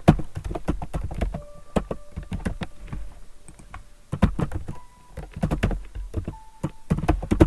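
Computer keyboard being typed on: runs of quick key clicks with short pauses between words.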